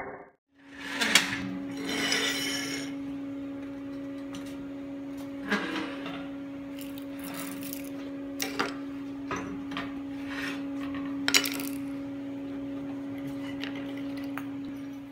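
Steel railing parts and clamps clanking and clinking as they are set and clamped on a steel welding table, over a steady machine hum. A few sharp metal knocks stand out, the loudest about a second in and again near 11 seconds.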